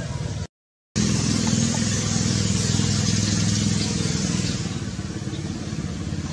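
Steady motor vehicle engine noise with a strong low hum. It drops out completely for about half a second near the start, returns, and slowly fades.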